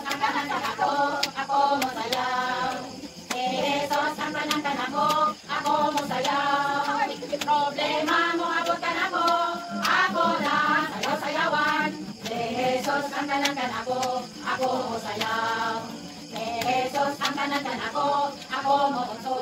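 A group of people singing a song together in unison, phrase after phrase, with some claps.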